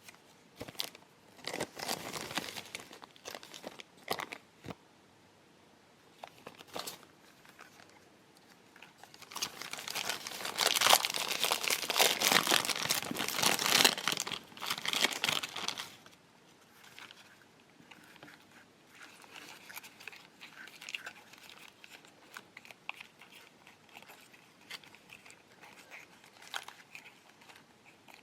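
Plastic packaging bags from a Popin' Cookin' candy kit being crinkled and handled up close. There are scattered sharp clicks at first, then a long, dense stretch of crinkling about a third of the way in, followed by lighter rustling and ticks.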